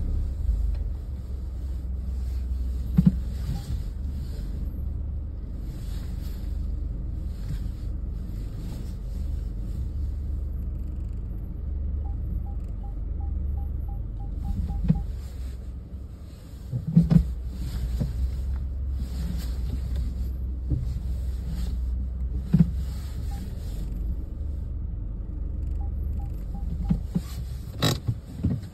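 Car's engine and tyres running at low speed inside the cabin as it manoeuvres in a parking garage: a steady low rumble with a few knocks, and twice a short run of quick, even ticks.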